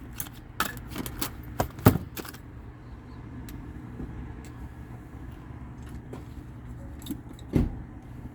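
Metallic clicks and clatter of hand tools and metal parts being handled on a furnace, several in the first couple of seconds and a heavier knock near the end, over a steady low hum.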